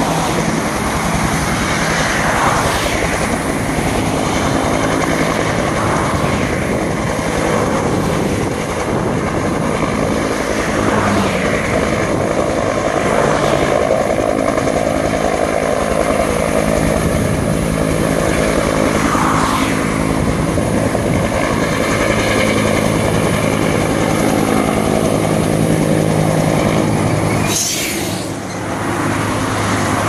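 Helicopter in flight, its rotor and engine running steadily, with a short break in the sound near the end.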